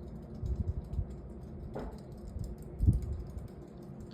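Rapid, irregular light clicking, like typing, with a few low thumps about half a second in and a louder thump near three seconds.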